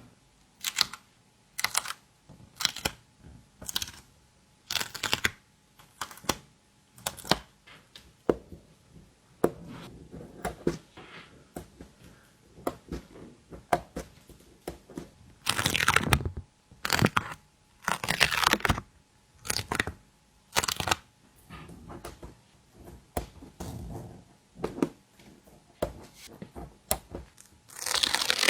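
Stickers being peeled from their backing sheets and pressed down, with short taps and crinkles of paper and plastic about once a second and a few longer peeling rasps, the loudest past the middle and at the end.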